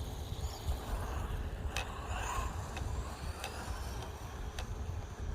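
Wind buffeting the microphone with a steady low rumble, with scattered sharp clicks and a faint high whine that rises and falls.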